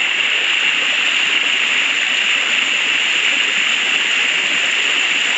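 Waterfall pouring into a pool, a steady rushing hiss of falling water.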